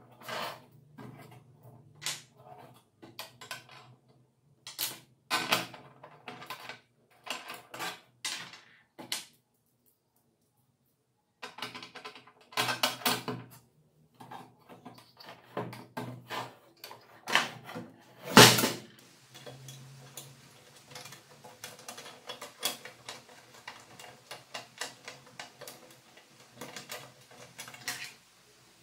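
Metal parts and tools being handled on a wooden tabletop while assembling an angle grinder stand: small clinks, clicks and knocks of screws, brackets and the steel frame. There is a short pause, one loud sharp knock about two thirds of the way through, then a quicker run of small ticks and rattles.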